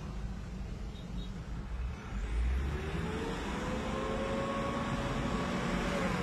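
Hyundai Grand Starex's 2.5-litre D4CB common-rail turbodiesel running with a steady low rumble. Partway through, a whine rises in pitch, holds, and falls away at the very end, as the van pulls under acceleration.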